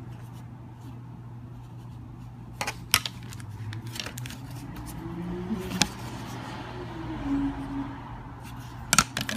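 Sharp clicks and taps from a hard plastic phone case being handled, a few scattered single knocks and a quick cluster near the end, over a steady low hum.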